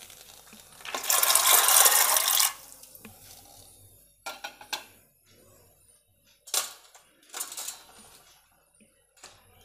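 Soaked chickpeas tipped from a bowl into water in an aluminium pressure cooker: a rush of rattling and splashing for about a second and a half, followed by a few short clinks and knocks of metal dishes.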